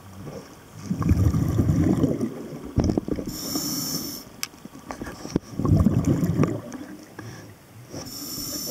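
Scuba diver breathing through a regulator underwater: two rumbling exhalations of bubbles, about a second in and again around five and a half seconds, each followed by the hiss of an inhale through the demand valve. A few sharp clicks fall between the breaths.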